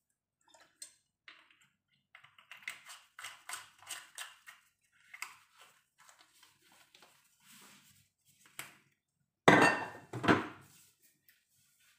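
Light clicks and taps of a glass olive-oil bottle being shaken over carrot sticks on a metal baking tray, then two loud knocks about a second apart near the end.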